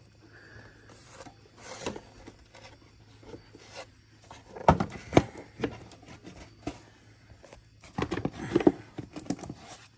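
Plastic engine air-filter housing being handled as the new filter is seated: the lid and filter rub and scrape, with sharp plastic knocks about five seconds in and a cluster of them near the end as the lid is pressed down into place.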